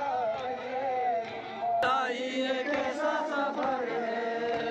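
A crowd of men chanting a mourning lament (noha) together, with the sound jumping abruptly about two seconds in.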